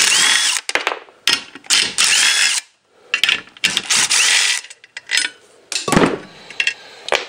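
Cordless impact driver unscrewing the bolts that hold a clutch pressure plate to a flywheel, in several bursts, the motor's whine rising as it spins up in each. A metal clank near the end.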